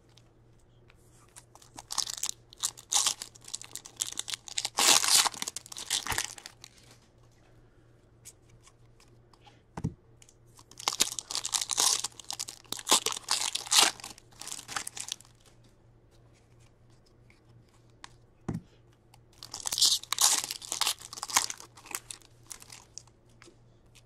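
Hockey card pack wrappers being torn open and crinkled, in three bouts of crackling, with a couple of single knocks between.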